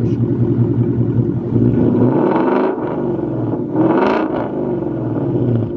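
2015 Ford Mustang GT's 5.0 Coyote V8 idling and revved twice, the pitch rising and falling each time, about a second and a half in and again around four seconds in, through an exhaust that looks to have a muffler delete.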